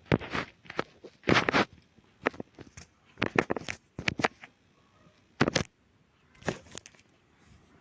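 Packaging being handled, crinkling and crackling in irregular bursts.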